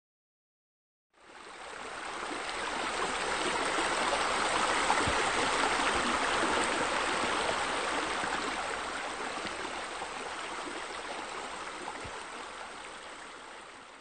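Steady rush of falling water from a small waterfall spilling into a pool. It fades in about a second in, swells toward the middle and fades out at the end.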